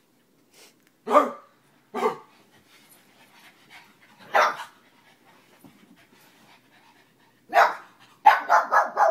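Pugs barking as they scuffle: single sharp barks about a second, two and four seconds in, then a quick run of five or six yaps near the end.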